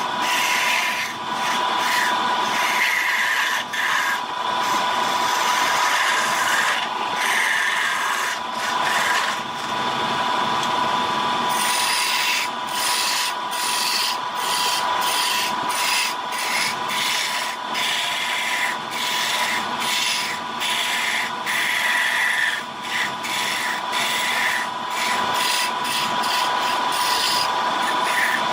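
Wood lathe running with a steady whine while a turning tool cuts the spinning wood, a dense rasping scrape. The cutting noise breaks off briefly again and again as the tool comes off the wood, more often in the second half.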